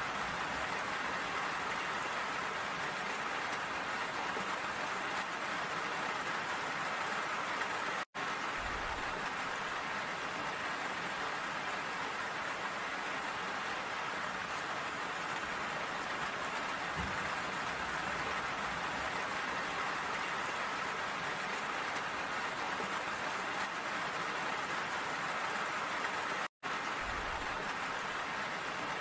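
Steady rain falling, an even hiss of drops. The sound cuts out completely for an instant twice, about eight seconds in and again near the end.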